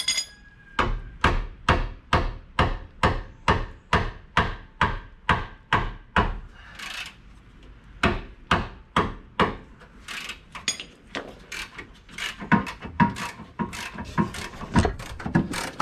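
Metal tools working a seized lower control arm bolt loose. Sharp knocks come evenly at about two to three a second for the first six seconds, then turn irregular.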